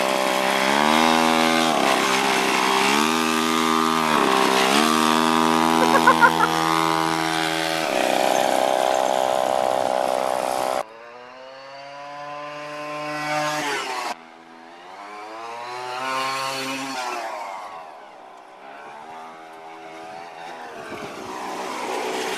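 Mini bike's small gas engine revving up and down repeatedly as it is ridden close by. About eleven seconds in the sound cuts to the engine farther off and fainter, its pitch rising and falling as the bike speeds up and slows.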